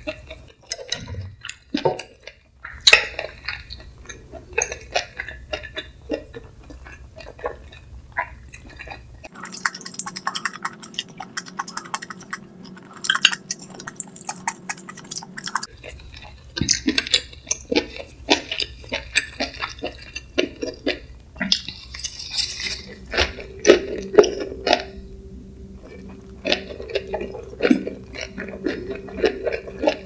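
Close-miked eating sounds: a wrap of perilla leaf and pickled radish being put together by hand with saucy spicy stir-fried webfoot octopus, with many small wet clicks and light clinks against the dishes. In the second half comes wet, chewy chewing of the wrap.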